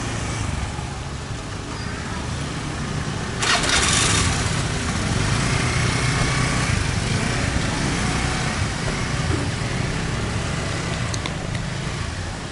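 Small motor scooter engines running and idling close by, with a steady low drone throughout. A brief loud rush of noise comes about three and a half seconds in.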